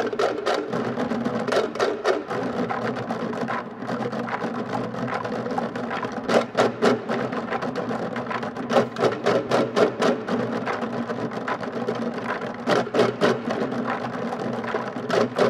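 Marching band performing: a steady held chord under sharp, clicking percussion strikes that come in quick clusters.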